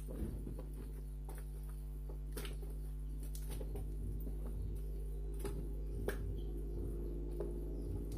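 A hand kneading wet pukis batter in a large plastic tub: irregular soft squelching and patting, with a few sharper clicks.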